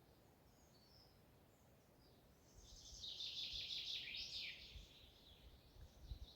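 A songbird singing one rapid, dense phrase of high chirps with falling notes, about two seconds long, starting about two and a half seconds in, after a few faint chirps.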